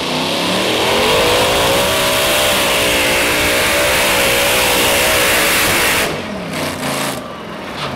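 Twin supercharged Hemi V8 engines of a modified pulling tractor at full throttle under load, the pitch climbing and wavering. About six seconds in they cut off suddenly, followed by a short run of pops.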